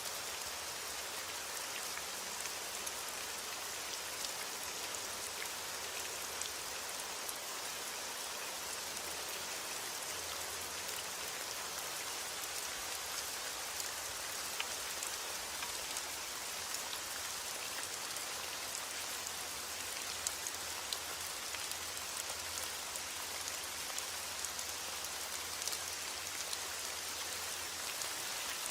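Steady heavy rainfall, an even hiss of rain with scattered individual drop ticks on a hard surface.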